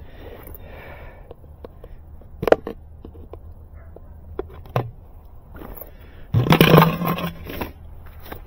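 Black plastic fiber-optic dome splice closure being opened by hand: two sharp plastic clicks, then about a second of loud scraping and rubbing as the dome cover is pulled off its base.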